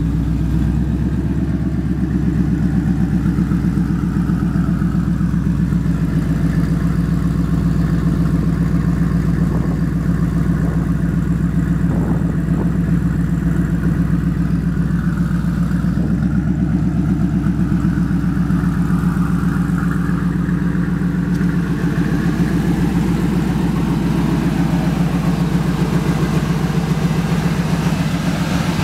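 Ford SVT Lightning pickup's supercharged 5.4-litre V8 idling steadily, with an even, lumpy pulse.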